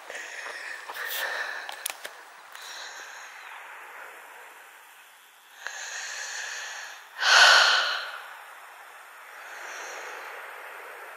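A person breathing heavily, out of breath from a long hot walk: several long breaths, the loudest about seven seconds in.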